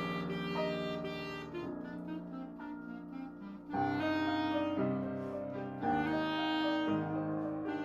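Clarinet playing a melody of long held notes over piano accompaniment, getting louder about four seconds in.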